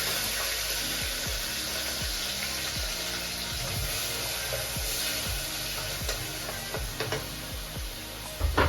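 Green pepper and carrots sizzling steadily in hot cooking oil in a pot, with background music's low beat underneath. A couple of sharp knocks near the end.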